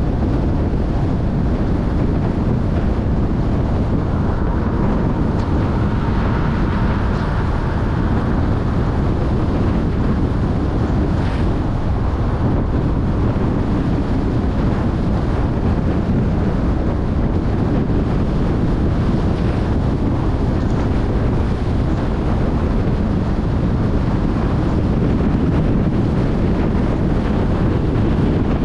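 Car driving with steady wind rumble on the microphone over its road noise.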